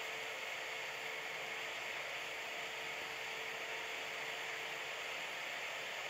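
Steady hiss of background noise with a faint, constant hum underneath; nothing else happens.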